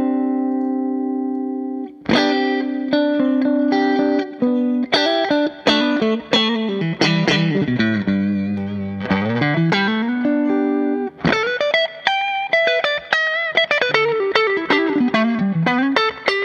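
Electric guitar played through an AmS Hurricane 40 valve amp head, which has four 6V6 power tubes. A held chord rings out, then come picked riffs, a long slide down in pitch and back up in the middle, and quick single-note lines near the end.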